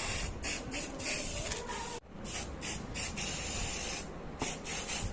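Aerosol spray can spraying in many short, irregular bursts of hiss.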